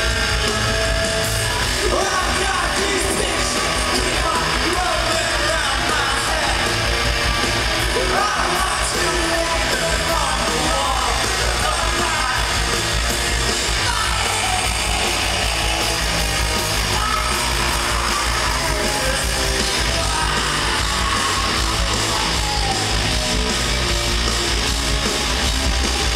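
Rock band playing live: electric guitars, bass and drums, with a shouted, sung lead vocal, heard from within the crowd.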